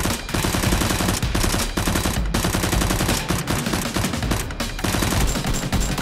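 Rapid automatic gunfire sound effect, long bursts of quick shots with a few brief breaks.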